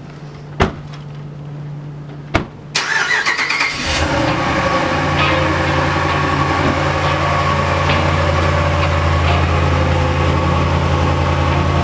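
Two sharp door slams, about half a second and two and a half seconds in, then a pickup truck's engine cranks and starts about three seconds in and settles into a steady idle.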